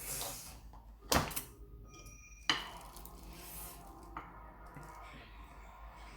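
Utensils clattering against dishes, with two sharp knocks about a second and a half apart, the first a quick double hit.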